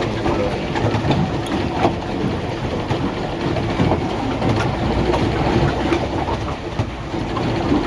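Small amusement-park ride boat's motor running steadily, with a low rumble and water noise.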